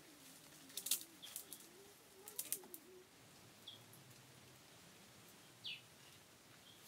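Faint animal calls: short high chirps scattered through, one falling chirp near six seconds in, and a low wavering cry over the first three seconds. A few sharp clicks, the loudest sounds, come near one second in and again about two and a half seconds in.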